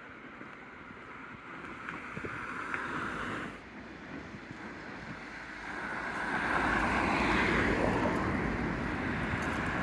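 Road traffic passing on a city street, heard as a rushing noise. One vehicle swells past about three seconds in, then a louder, low traffic rumble builds from about six seconds in.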